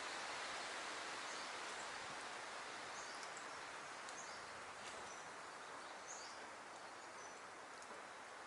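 Faint outdoor nature ambience: a steady hiss that slowly fades, with scattered faint, short, high bird chirps.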